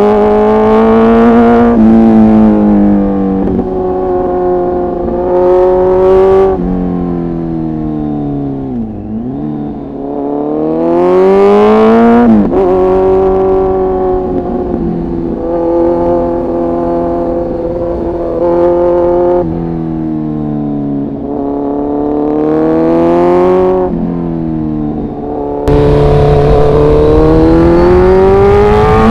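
Kawasaki Z900's inline-four engine under way, revs rising and falling through several gear changes. It drops to a low note about nine seconds in, then pulls up hard to a peak and shifts. Near the end the sound changes abruptly to a harsher one with a rush of wind noise, as the recording cuts to the other microphone.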